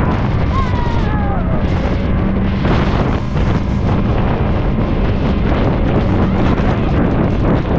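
Wind buffeting the microphone over the steady hum of a motor, as when riding fast in an open watercraft such as a jetcar.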